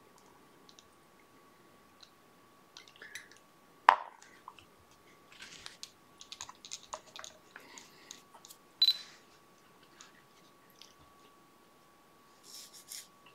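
Quiet small clicks and rustles of fly-tying tools and materials being handled at the vise, with one sharp click about four seconds in and another short click near nine seconds. A faint steady hum runs underneath.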